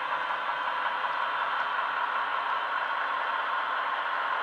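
Heljan Class 15 model diesel locomotive running on a Loksound 5 micro DCC sound decoder: the recorded diesel engine sound plays steadily from its small onboard speaker as the model moves along the track.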